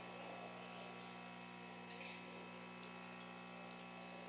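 Quiet hall room tone with a steady electrical hum, and two or three small, sharp clicks in the last second and a half.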